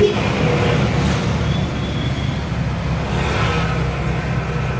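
A motor vehicle engine running steadily, a low even hum.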